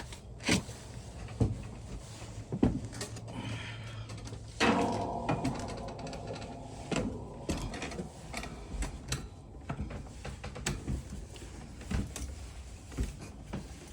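Irregular footsteps, knocks and clicks of someone climbing down from an attic to the floor below, about one a second. A steadier low noise comes in suddenly about four and a half seconds in and slowly fades.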